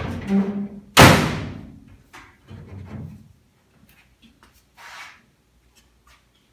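Steel hood of a 1950 Willys Jeepster shut against the push of a newly fitted gas strut: one loud metal thud about a second in that rings on briefly. Softer knocks and rattles follow as the panel is handled.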